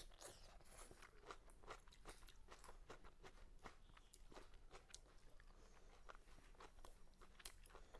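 Faint close-up chewing and crunching of food by a person eating, many small irregular crunches.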